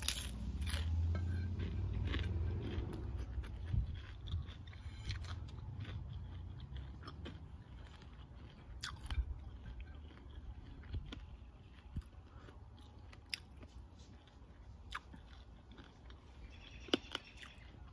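A person biting and chewing food close to the microphone, with scattered sharp clicks. Loudest in the first few seconds, then quieter.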